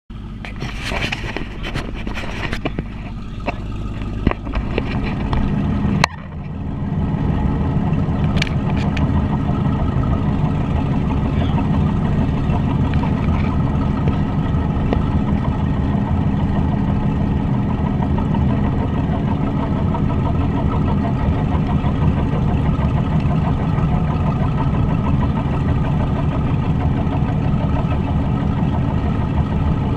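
For the first few seconds, knocks and clicks of a camera being handled, ending in a sharp click about six seconds in. After that, a Silverton boat motors along, making a loud, steady, low drone from its engine mixed with water rushing along the hull just below the microphone.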